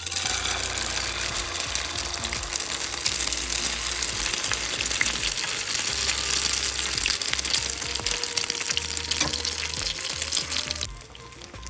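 Beaten egg mixed with chopped onion frying in hot oil in a pan, sizzling loudly; the sizzle starts suddenly and drops off abruptly near the end.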